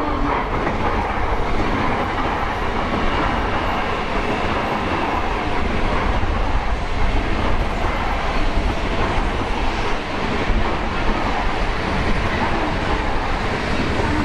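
Tokaido Shinkansen train running along the station tracks: a steady, loud noise of wheels on rail and the moving train, with a low rumble underneath.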